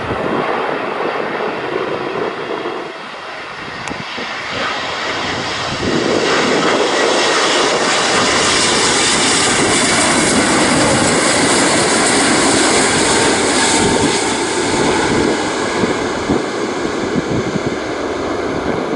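Boeing 777-200ER twin jet engines running at approach power as the airliner flies low and close on final approach. The noise grows about six seconds in, stays at its loudest for several seconds as the jet passes, then eases a little as it moves away down toward the runway.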